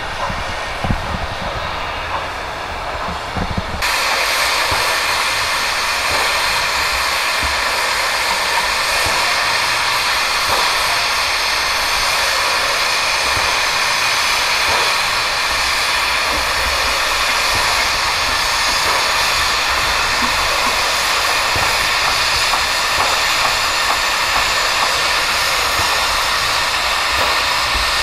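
JS-class steam locomotive standing with steam hissing steadily and loudly, the hiss starting abruptly about four seconds in over a low rumble.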